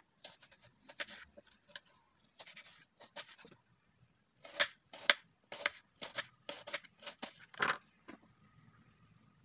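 Knife slicing through a peeled apple onto a bamboo cutting board: short crisp cuts, scattered at first, then about two a second for a few seconds before stopping near the end.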